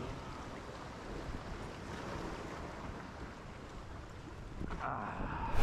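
Sea surf washing against jetty rocks, with wind buffeting the microphone. It is a steady, fairly faint wash that swells slightly near the end.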